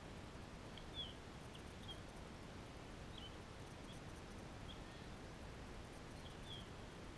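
Faint outdoor background noise with scattered short, high bird chirps, several small glides in pitch, the clearest about a second in.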